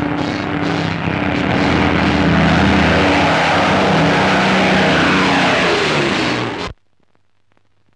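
Propeller-driven heavy bomber's piston engines droning loudly, the pitch falling near the end as it passes. The sound cuts off abruptly about 7 seconds in.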